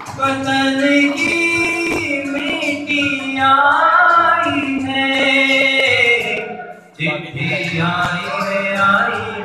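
A man singing a slow song into a handheld microphone, holding long notes that waver in pitch, with a short breath pause about two-thirds of the way through before he sings on.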